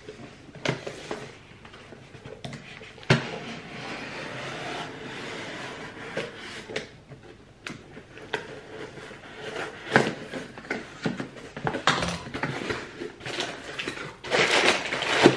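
Cardboard box being opened by hand: a folding knife scraping and slicing along the packing tape, then the flaps pulled open and hands rummaging inside. There are scattered sharp knocks and clicks, and a longer scraping cut about three seconds in.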